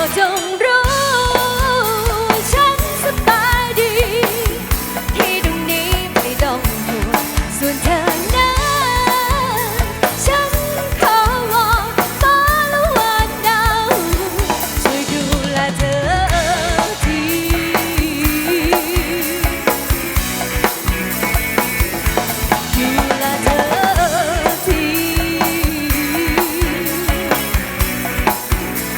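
Live band music: a drum kit keeps a steady beat under a wavering melodic lead line, in an instrumental passage without transcribed vocals.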